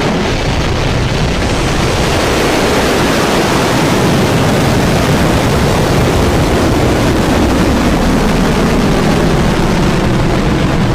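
Firefly Alpha rocket's first-stage engines running at full thrust during liftoff: a loud, steady, unbroken wall of noise from deep bass up to high hiss.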